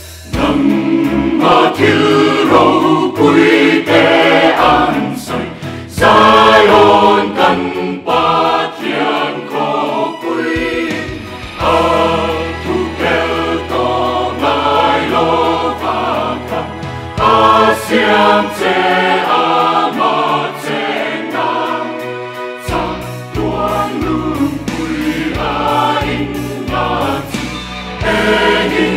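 Mixed choir of men and women singing a gospel hymn in parts, in Mizo, phrase after phrase with short breaks between them.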